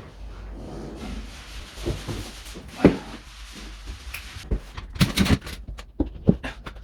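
Plasterboard being handled and set against the wall: rubbing and scraping, then a run of light knocks and taps, thickest about five seconds in.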